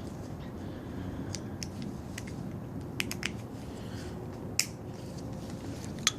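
Hand tools and parts being handled: scattered sharp clicks and light taps, several of them, over a low steady background noise.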